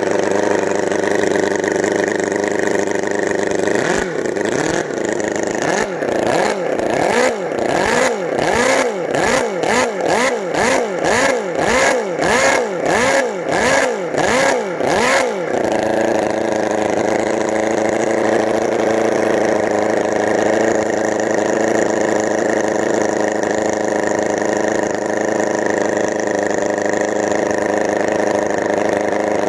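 Enjomor 36cc four-cylinder four-stroke model engine, freshly fitted with new connecting rod bushings, running at a steady idle. About four seconds in it is revved in a quick run of throttle blips, its pitch rising and falling over and over for about eleven seconds, then it settles back to a steady idle.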